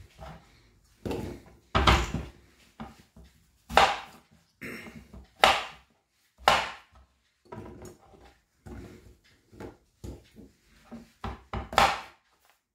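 Knife cutting bottle gourd on a wooden cutting board, with irregular sharp knocks of the blade on the board and chunks dropped into a stainless steel pressure cooker.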